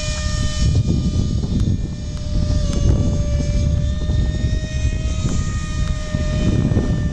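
Radio-controlled model airplane flying overhead, its motor and propeller giving a steady high drone that wavers slightly in pitch, with wind rumbling on the microphone.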